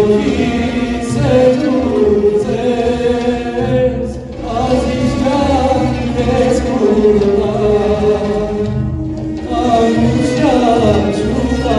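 A male solo singer and a boys' choir singing a song over instrumental accompaniment with a pulsing bass beat. The vocal line breaks briefly between phrases about four seconds in and again around nine seconds.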